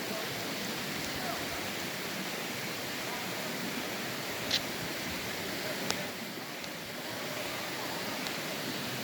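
Mountain creek water rushing steadily, with two short sharp clicks about halfway through.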